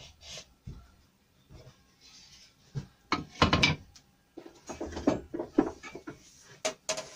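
Hand tools being handled and set down on a wooden workbench: a few light knocks, a louder rattling clatter about three seconds in, then shuffling and a couple of sharp clicks near the end.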